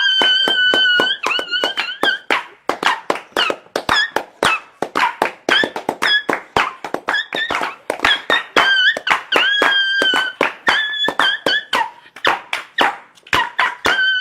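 Dog crying sound effect: high whining cries, each held and bending at its end, repeated again and again among rapid sharp clicks.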